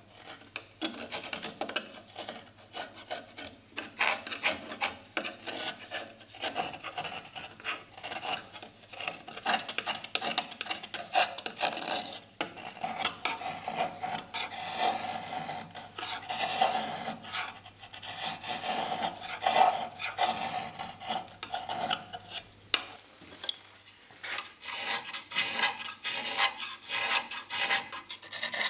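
A small Japanese carving knife (kuri kogatana) paring and scraping a wooden cup's handle. It makes a run of short, dry shaving strokes that blend into longer continuous scraping in the middle.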